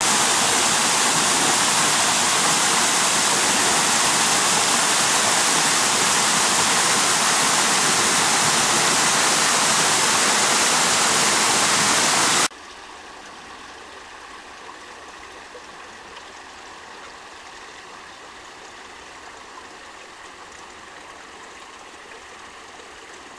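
Small waterfall splashing steadily over rock into a pool, loud and close. About halfway through it cuts off suddenly, leaving only a faint outdoor hush with a few light ticks.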